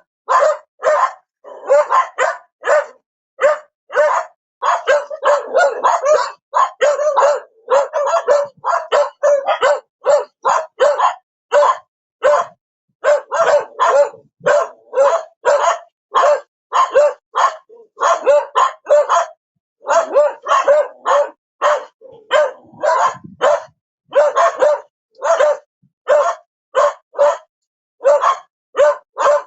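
A dog barking over and over, short separate barks about one to two a second with brief gaps between them, sometimes coming in quicker runs.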